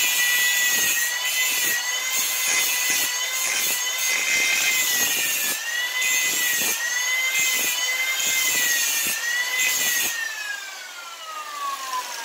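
Angle grinder grinding the steel edge of a lawn mower blade to true up its gouged edge: a steady high motor whine with a rough grinding rasp that dips and returns as the disc is pressed on. About ten seconds in the disc comes off the steel and the motor winds down, its whine falling steadily in pitch.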